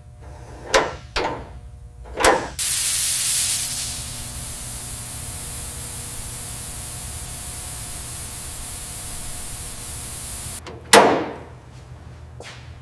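A few sharp knocks, then a steady hiss of spraying air for about eight seconds, louder in its first second, which cuts off and is followed by one loud clank.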